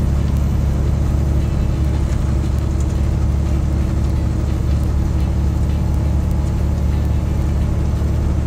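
Semi-truck's diesel engine and road noise heard inside the cab while cruising at highway speed: a steady low drone that holds level throughout.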